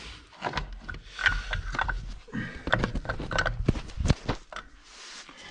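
Irregular metallic clicks and knocks as the clutch assembly is worked off its shaft in a Vespa 300 GTS's CVT transmission, with the sharpest knock about four seconds in.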